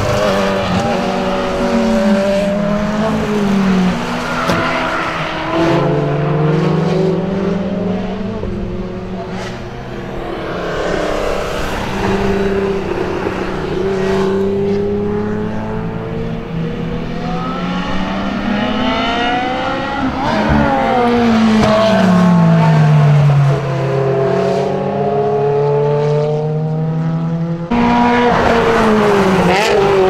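Sports car engines on track at high revs, the pitch climbing under acceleration and dropping back through gear changes and downshifts, over and over. Partway through, two engines are heard at once, and near the end the sound switches abruptly to another, closer engine.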